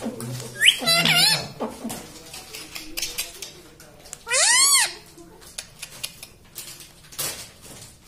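Rose-ringed parakeet (Indian ringneck) calling: a quick run of short, wavering chirps about a second in, then one loud call that rises and falls in pitch just after four seconds.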